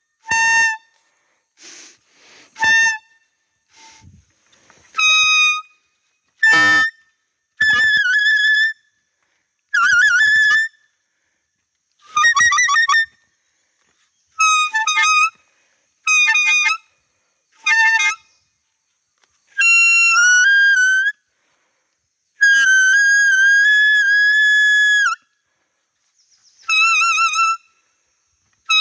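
Bamboo stick blown as a deer call, making the cry of a fawn to lure a doe: about fifteen whistle-like toots, most short, with a couple held for one to three seconds in the second half, separated by quiet gaps.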